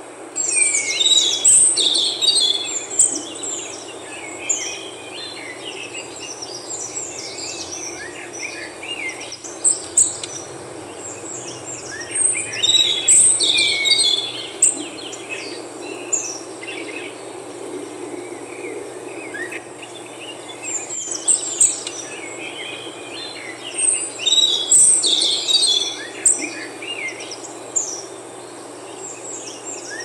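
Wild songbirds singing: four bursts of quick, high chirping and trilling phrases, each a second or two long, over a steady low background hum.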